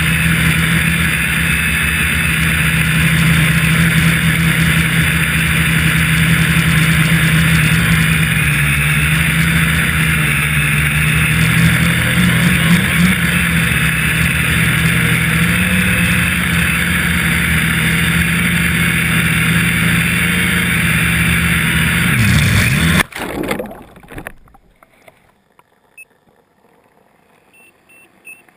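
Quadcopter's electric motors and propellers whirring steadily, heard from the camera on the craft, the pitch wavering just before the sound cuts off abruptly about 23 seconds in as the quad drops into the lake. A brief splash follows, then only faint, muffled sound from underwater. The owner puts the crash down to a speed controller (ESC) failing in flight.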